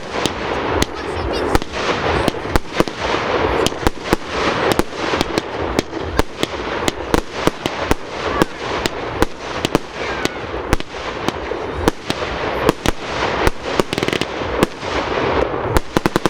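Fireworks display: a rapid, irregular barrage of sharp bangs over continuous crackling, with a quick cluster of bangs near the end.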